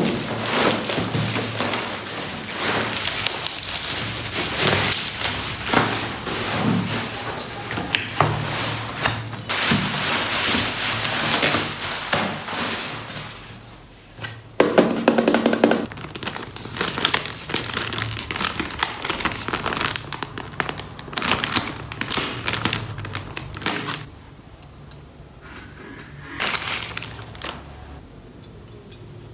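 Packaging crinkling and rustling while flat-pack furniture parts are unpacked and handled, with scattered knocks and thunks of the boards; the handling quiets down for a few seconds near the end.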